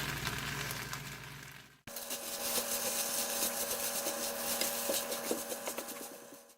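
Kitchen food-prep handling sounds: soft scraping, rubbing and light taps of utensils and food in a dish, over a steady hum. The sound cuts out abruptly about two seconds in and again at the end, as the footage is edited.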